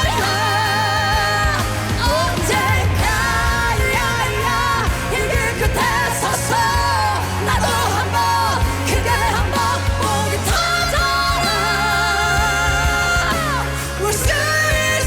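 Singing over a pop-rock band backing, with a steady bass line and long held vocal notes with vibrato, a couple of seconds each.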